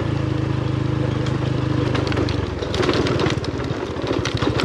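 TVS Apache RTR 180's single-cylinder four-stroke engine running steadily while riding a dirt trail. About two seconds in, its note drops into a slower, pulsing beat, with a scatter of clicks and rattles as the bike goes over stonier ground.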